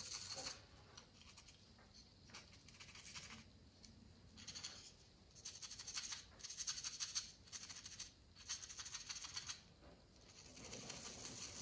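Faint scratchy scrubbing of a stiff, trimmed-down paintbrush over a painted model part, in short bursts of rapid strokes, wearing through the top coat of paint to chip it.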